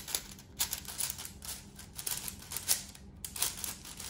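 Plastic layers of a MoYu AoShi WRM 6x6 speed cube clacking as it is turned, in quick irregular runs of clicks.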